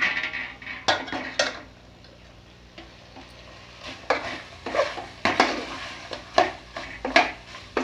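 Steel spoon scraping and clinking against an aluminium pot while stirring chicken pieces with ginger-garlic paste, with the food sizzling as it fries. There are a few strokes at first, a brief lull, then a run of quick scrapes from about four seconds in.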